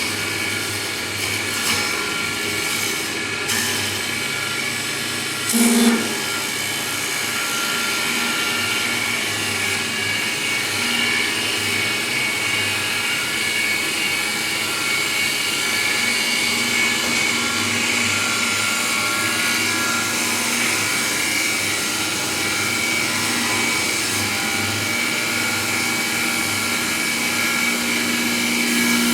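CNC wood lathe running steadily, its cutter turning wood: a continuous machine whine over cutting noise, with a brief louder burst about six seconds in.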